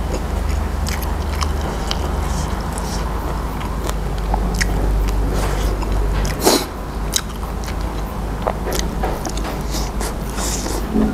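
Close-up eating sounds of a man chewing raw beef salad with crunchy raw garlic and vegetables: wet chewing with many small crisp crunches and mouth clicks, and one sharper click about six and a half seconds in, over a steady low hum.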